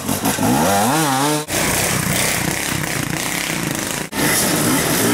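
Off-road dirt bike engines revving as riders pick their way through a wooded enduro track, the pitch rising and falling with the throttle. The sound breaks off sharply twice, about a second and a half in and again near four seconds, then carries on as a rougher, rasping engine note.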